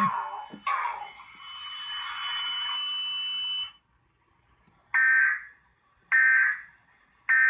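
Emergency Alert System end-of-message data tones: three identical short, harsh warbling digital bursts, a little over a second apart, marking the end of the cable Child Abduction Emergency alert. Before them a steady hissing sound with a thin high tone runs for about three and a half seconds and cuts off.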